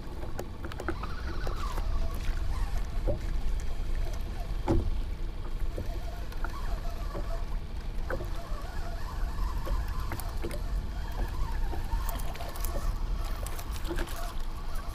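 Small waves lapping and slapping against a kayak's hull, with a steady low wind rumble on the microphone and a few small clicks and knocks.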